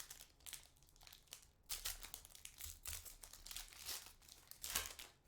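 Wrapper of a Panini Select football card pack crinkling and tearing as it is opened by hand, in a string of irregular rustles, loudest about two seconds in and again near the end.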